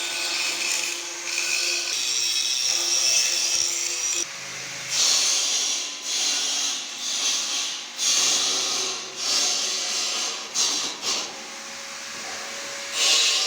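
A handheld electric power tool working steel: a steady run with a motor whine for about four seconds, then a series of short on-off bursts.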